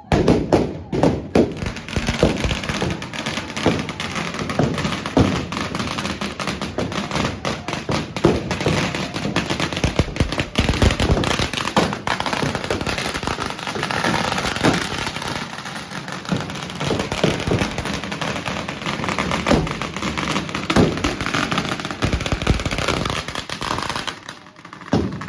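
Firecrackers going off in a dense, rapid string of sharp bangs that dies down just before the end.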